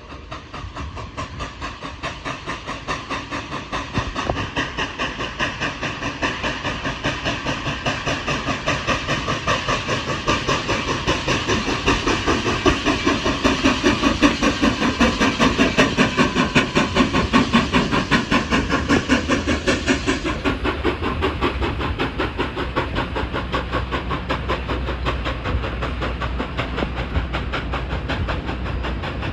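Steam locomotive exhaust from Nickel Plate Road 765, a 2-8-4 Berkshire, chuffing from the stack in a fast, even rhythm over a hiss of steam. It grows louder to a peak past the middle, then turns duller and eases off as the engine moves away.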